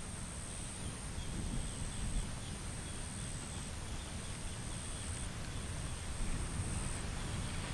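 Rural outdoor ambience: a steady high-pitched insect drone, small chirps repeated every fraction of a second, and a low rumble underneath.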